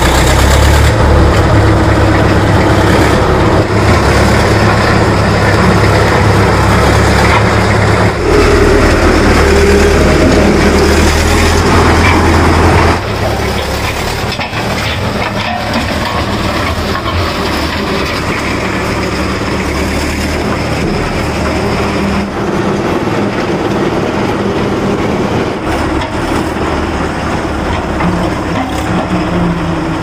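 Engine of a 1999 Jessop three-wheel road roller running steadily, with a low, even rumble; the sound drops noticeably in level partway through.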